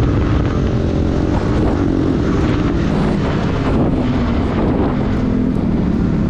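Yamaha sport motorcycle's engine running steadily at cruising speed, heard from the rider's seat over a rush of wind and road noise.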